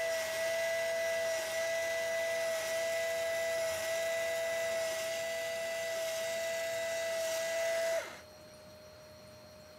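A motor in a Red Sea ReefBot alkalinity tester whining steadily with a hiss as the machine runs its syringe cycle. It cuts off suddenly about eight seconds in, leaving only a faint steady hum.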